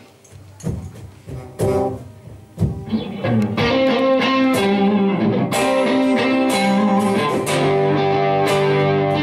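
Live guitar music opening a song: a few separate chords struck about once a second, then from about three seconds in acoustic and electric guitars play together in steady, sustained chords.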